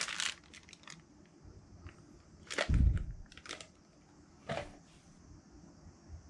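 Handling noises: a dull thump with a crackle about two and a half seconds in, then a few scattered sharp clicks.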